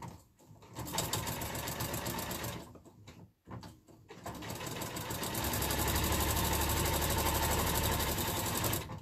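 Electronic sewing machine stitching a seam that joins quilt squares. It runs in two goes: a short run, a brief stop, then a longer run that speeds up and stops near the end.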